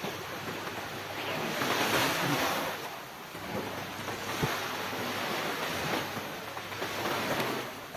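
Sea waves washing up on the beach, the surf swelling and falling back twice.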